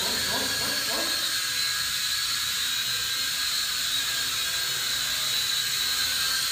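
WLtoys V686G toy quadcopter in flight, its four motors and propellers giving off a steady high-pitched whine that wavers a little in pitch as it climbs and drifts.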